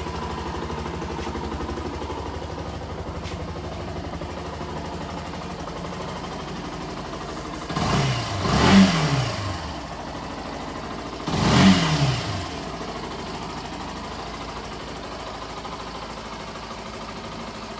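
2017 Yamaha YS125's 125 cc single-cylinder four-stroke engine idling steadily in neutral. It is revved briefly twice, about eight and about eleven seconds in, each time rising and dropping straight back to idle.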